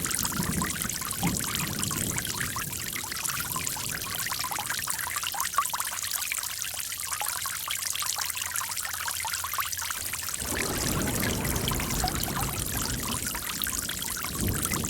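Running water with many small splashes. Its lower, fuller part fades for a few seconds in the middle, then returns.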